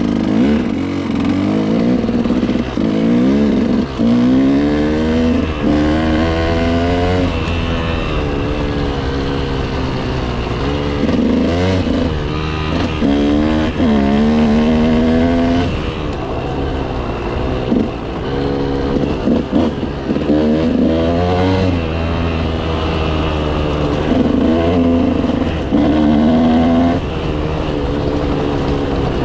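KTM motorcycle engine pulling along a dirt forest road, its pitch rising and falling again and again as the rider opens and closes the throttle through the gears.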